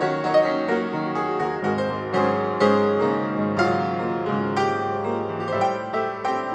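Background piano music, notes struck one after another in a steady flow.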